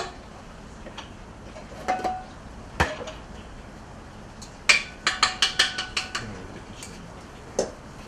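Metal utensil knocking and scraping against a stainless-steel mixing bowl of almond cream: a few separate knocks, one of them a heavy thump, then a quick run of ringing clinks about halfway through.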